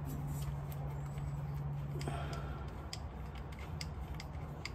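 Scattered light metallic clicks and ticks of hand tools and parts being handled, over a steady low hum.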